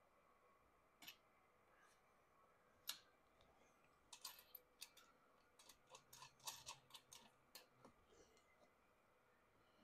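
Near silence broken by small clicks and taps of an alarm cable's connector being handled and plugged into its panel inlet: a single click about a second in, a sharper one near three seconds, then a run of quick clicks from about four to eight seconds.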